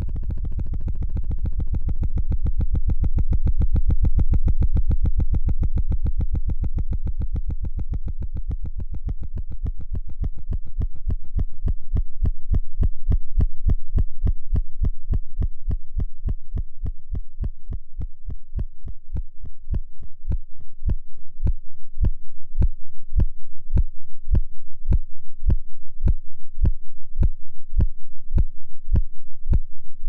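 Synthesized electronic pulse, a waveform looped forwards and in reverse, slowing steadily from a rapid flutter to about two low throbs a second, its brighter upper edge fading out past the middle. It is the charged muon's mean lifetime turned into a tone and brought down octave by octave until it becomes a tempo.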